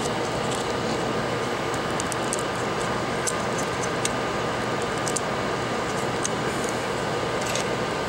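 Steady whirring fan noise with a faint steady whine, and scattered light clicks and rustles of handling.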